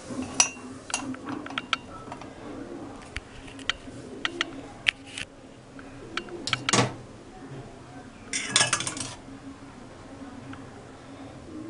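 Kitchen utensils clinking and knocking as the tulasi kashayam is strained: a string of separate sharp clinks, with a brief rush of noise about eight seconds in.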